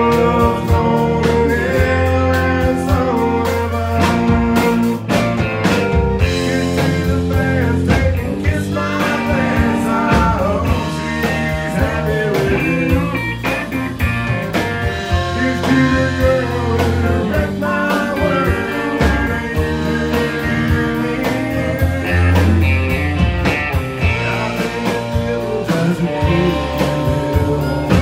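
Live country band playing a song: a male voice singing over strummed acoustic guitar, fiddle, electric guitar and drums.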